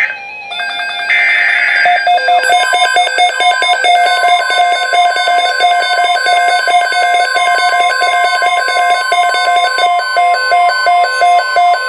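NOAA Weather Radio alert: a short burst of SAME digital header tones about a second in, then weather alert radios' alarms beeping rapidly in a repeating pattern, joined from about four seconds in by the steady 1050 Hz weather radio warning tone. The alert announces a severe thunderstorm watch update.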